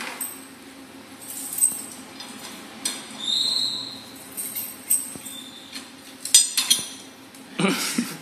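Scattered light taps and clicks over a steady low hum, with a brief high chirp about three seconds in and a short noisy burst near the end.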